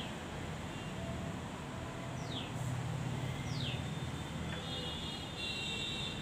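Steady background noise with a low rumble, and three short, high chirps that fall in pitch, spread over the first four seconds.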